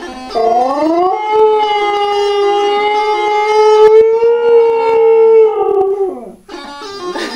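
Siberian husky howling: one long howl that slides up in pitch, holds a steady note for about five seconds, then falls away and stops. The reedy notes of a bagpipe chanter play along and come back on their own near the end.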